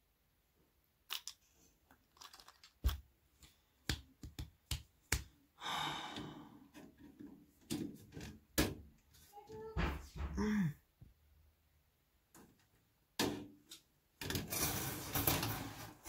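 Hands handling a bare steel computer case and its small metal parts: scattered sharp clicks and knocks, with longer rubbing, scraping noise about six seconds in and again from about fourteen seconds to the end.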